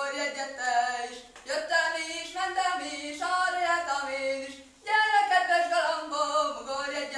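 A solo unaccompanied voice singing a Hungarian folk song in long, held phrases, with two short breaks between phrases.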